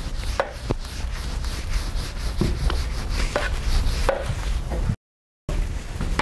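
Whiteboard eraser wiped across the board in a series of quick, sharp strokes, over a low steady hum. The sound drops out completely for half a second near the end.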